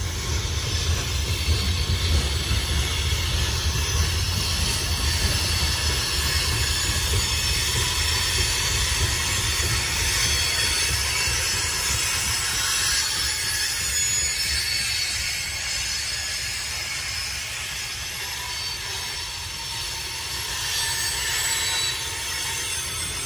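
Coal train hopper cars rolling past on the track: a steady low rumble of wheels on rail with thin, high-pitched wheel squeal over it. The rumble eases somewhat in the second half.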